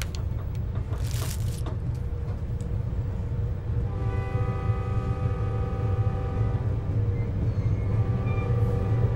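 Steady low rumble of a passenger train car running, heard from inside the car. About four seconds in, a held chord of steady tones sounds for about three seconds, then comes back near the end.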